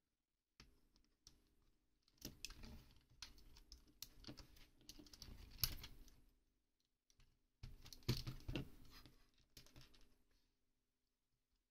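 Faint, irregular clicking and rubbing of LEGO plastic and rubber parts as tyres are worked onto wheel rims and the wheels pushed onto the axles of a 1977 LEGO Technic tractor, with a sharper click about five and a half seconds in.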